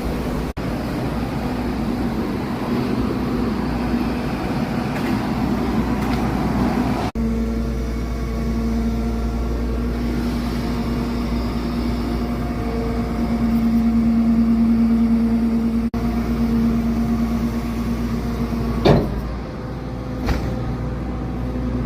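A vehicle engine running steadily, heard across several cuts, with a sharp knock near the end and a second, lighter one just after.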